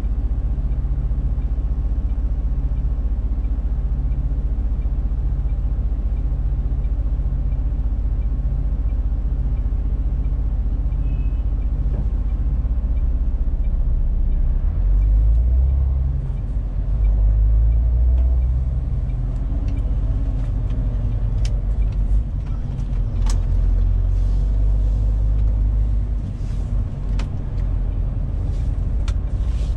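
MAN TGX 470 truck's straight-six diesel engine heard from inside the cab: a steady low idle, then louder for a few seconds about halfway through as the truck pulls away, with a few sharp clicks in the later part.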